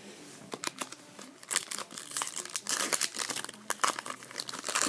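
Crinkling and tearing of a trading-card pack wrapper being ripped open and handled, in irregular crackles that grow busier from about a second and a half in.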